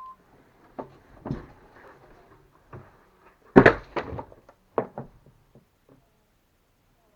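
A series of irregular knocks and thumps, the loudest a cluster about three and a half seconds in.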